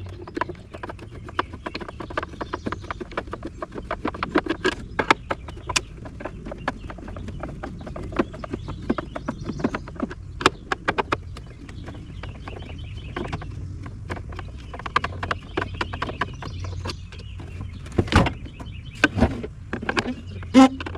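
Rapid irregular clicks, taps and knocks of a plastic juicer being handled and taken apart by hand, with a few louder knocks near the end.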